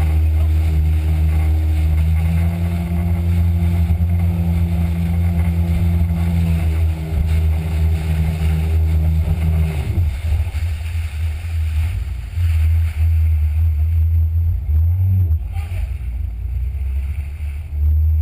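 Jet ski engine running at speed with a steady note. About halfway through, the steady note breaks off and the engine sound turns uneven, rising and falling.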